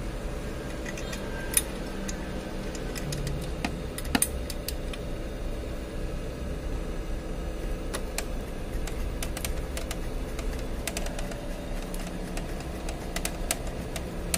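Scattered sharp clicks and taps at irregular intervals as parts are handled and fitted back into a photocopier's fixing unit, over a steady hum.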